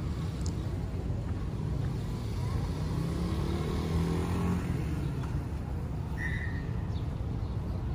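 A motor vehicle driving past, its engine hum swelling to its loudest about four seconds in and then fading, over a steady low rumble of traffic.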